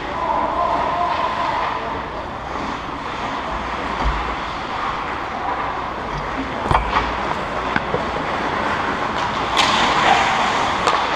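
Indoor ice hockey rink during play, heard from the goal: a steady wash of skating and game noise, with a few sharp knocks about two-thirds of the way through and a louder scrape of skate blades on ice near the end as the goalie moves out of the crease.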